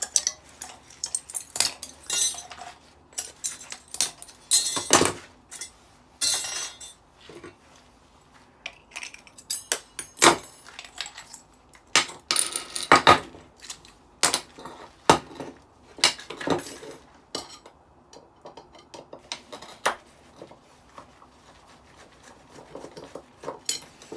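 Metal parts of a stainless-steel and machined-aluminium decking light clinking, knocking and scraping as it is dismantled by hand, in irregular clinks with a few longer rasping scrapes.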